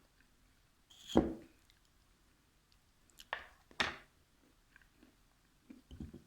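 Eating sounds close to the microphone: chewing with a few short, separate smacks and clicks, the loudest about a second in.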